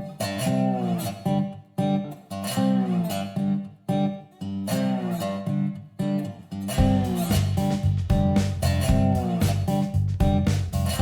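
Background music: plucked guitar in a steady rhythm, with a heavier bass line joining about seven seconds in.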